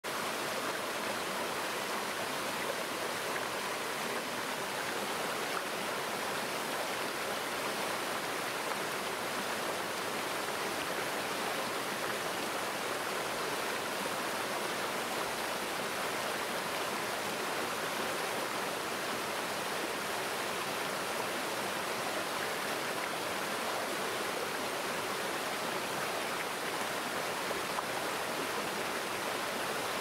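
Small waterfalls and a shallow, rocky forest stream: a steady rush and splash of running water.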